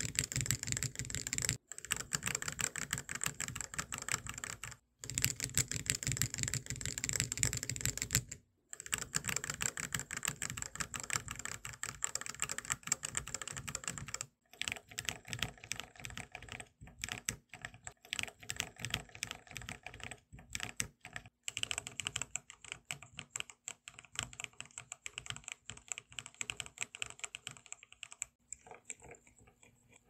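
Fast typing on a mechanical keyboard fitted with Gateron linear switches, in a sound test that moves from one switch to the next: the Ink Box Black first, the Oil King later. Dense runs of clacking keystrokes broken by short pauses, softer near the end.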